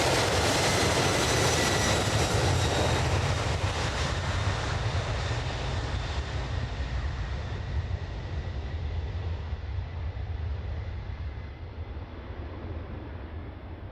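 Boeing 767-300 jet airliner's twin turbofan engines at takeoff power, heard as the aircraft climbs away. The noise fades steadily, its high, hissing part dying away first, with faint steady whistling tones from the engine fans.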